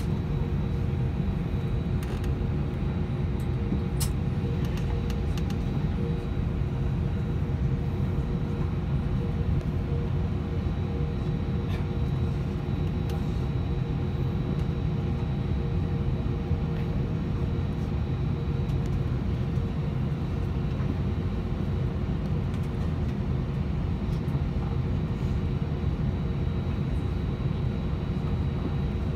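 Steady cabin noise inside an Airbus A320 on the ground: an even low rumble with a few steady humming tones over it.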